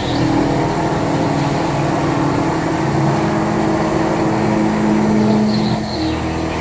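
CNC milling machine running steadily while machining a sheet-metal stamping die, a constant mechanical hum with steady low tones that shift slightly about six seconds in.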